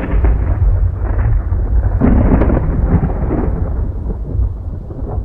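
Thunder and rain sound effect: a long rolling thunder rumble over rain hiss, swelling a few times and fading near the end.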